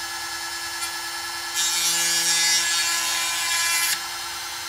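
Granberg G1012XT 12-volt chainsaw grinder motor running with a steady whine. About one and a half seconds in, its grinding stone is pressed to a milling-chain cutter tooth and grinds for about two and a half seconds, a louder rasping hiss. Then the motor runs free again.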